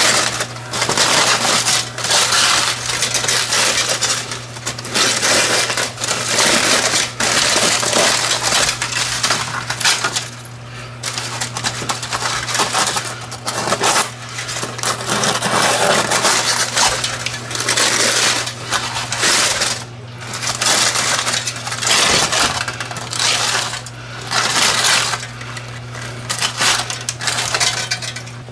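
Crumpled aluminum foil crinkling loudly in repeated bursts as the layers of a foil packet of potatoes are pulled open by hand, with short pauses between handfuls.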